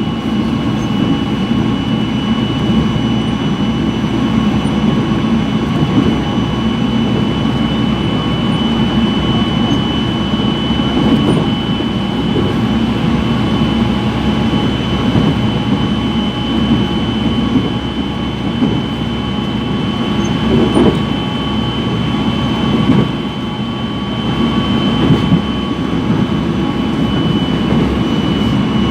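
Korail Line 4 electric commuter train running between stations, heard from on board: a steady rolling rumble with a constant high whine over it.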